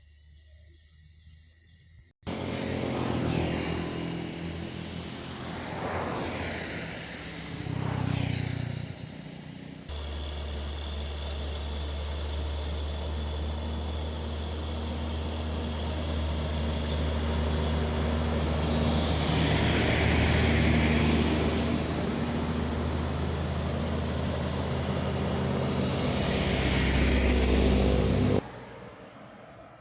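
Passing vehicle engines starting abruptly about two seconds in, with pitch sweeps as vehicles go by. From about ten seconds a steady, louder low engine drone takes over, then cuts off suddenly shortly before the end.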